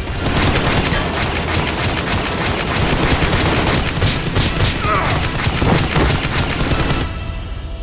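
Rapid automatic gunfire, about five shots a second over a dense wash of noise, which cuts off suddenly about seven seconds in.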